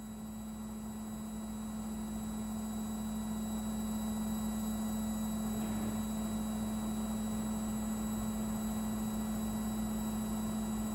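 Midea front-loading washing machine running with a steady hum that grows louder over the first few seconds, then holds level.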